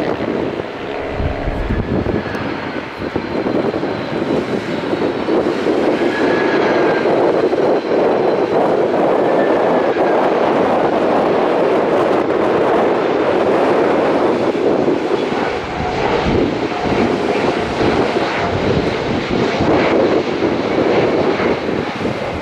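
Airliner engines running loud and steady: a broad rumble with faint whining tones above it.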